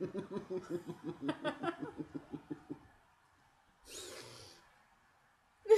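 Laughter, a rapid run of short pitched pulses for about three seconds. It is followed about four seconds in by a brief rush of breathy noise.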